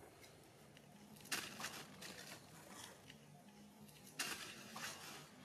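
Dry leaves and undergrowth rustling and crackling in two sudden bursts about three seconds apart, as monkeys scramble across the forest floor.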